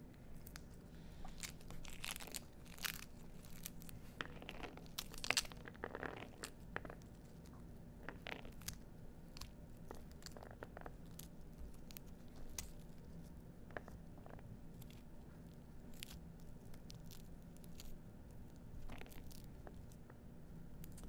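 Pomegranate being pulled apart by hand: the pith and membranes tear and the seeds are prised loose, giving irregular crackles, tearing and small snaps. They are busiest in the first seven seconds, with the loudest crack about five seconds in, over a faint steady low hum.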